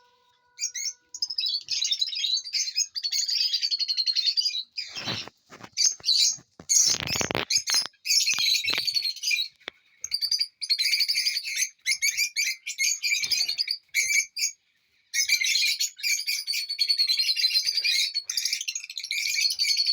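Lovebirds chirping and chattering in quick, high-pitched runs, pausing briefly twice. A few dull thumps come about five to seven seconds in.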